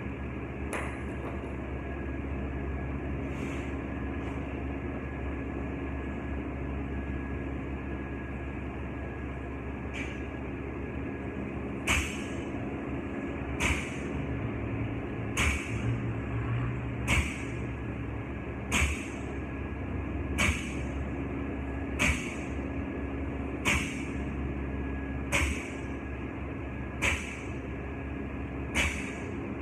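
Loaded barbell with bumper plates touching down on the rubber gym floor once per rep, a sharp clank about every second and a half to two seconds, starting about twelve seconds in. A steady low machine hum lies underneath.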